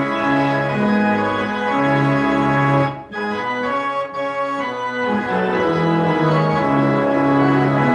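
Organ music: slow sustained chords moving from one to the next, with a brief break between phrases about three seconds in.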